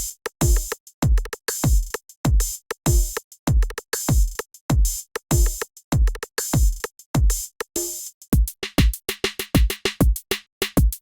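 Programmed reggaeton drum-machine pattern with dembow percussion: deep kick drums that drop in pitch, under snare and hi-hat hits in a steady groove. About eight seconds in it switches to a different kit with a busier, quicker pattern.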